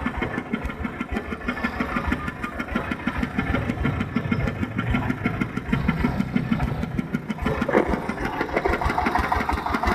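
Engine of a mobile rice milling machine running steadily, with a fast, even firing beat.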